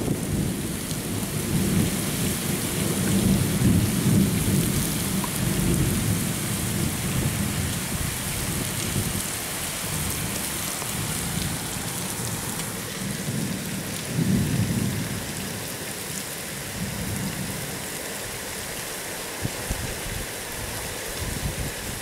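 Gusty cyclone wind buffeting the microphone: a low, noisy rumble that swells and fades, strongest over the first several seconds and again about two-thirds of the way through, over a steady high hiss.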